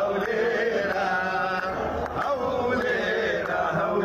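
A man singing a mawwal in long, drawn-out notes that waver and slide in pitch.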